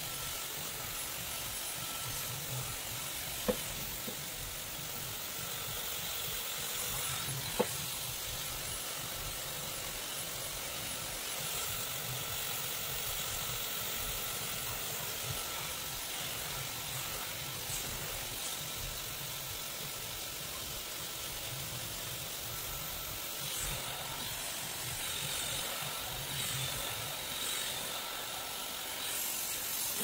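Dyson hair dryer with its comb attachment blowing steadily on a high setting while hair is dried, an even rushing hiss with a faint high whine. Two sharp clicks, about four seconds apart, sound in the first eight seconds.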